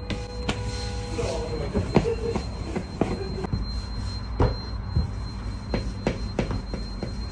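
Wooden rolling pin rolling out dough on a floured steel worktable: repeated knocks and taps as the pin and hands strike the table, over a steady low hum. A squeaky tone sounds during the first couple of seconds.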